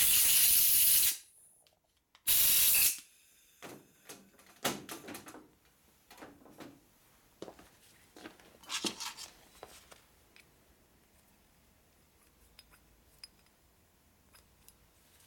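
Two blasts of compressed air from an air blow gun blowing off cleaned nitrous oxide transfer pump parts: the first about a second long, the second shorter about two seconds in, each starting and stopping sharply. A few light clicks and knocks follow.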